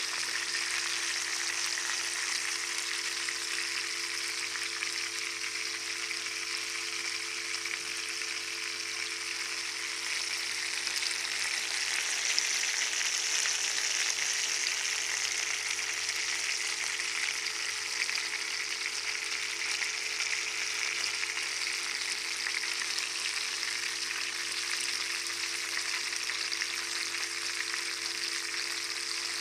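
Parrotfish frying, a steady sizzle with fine crackling that swells a little around the middle, over a faint steady low hum.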